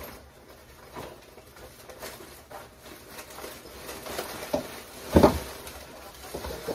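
Rustling and light knocks of plastic bags and items being packed into a cardboard box, with one louder thump about five seconds in.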